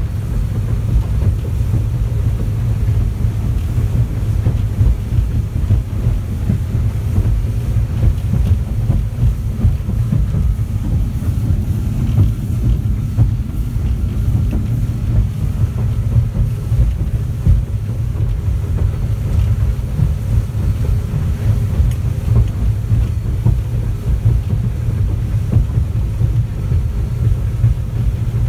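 Yamaha outboard engine running at about 4,100 rpm with the boat at 27 knots, heard from inside the enclosed helm: a loud, steady low drone mixed with the rushing, uneven noise of the hull running through rough water.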